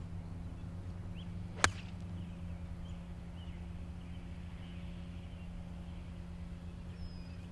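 A golf iron striking a ball on a full-swing approach shot from the fairway: one sharp click about a second and a half in.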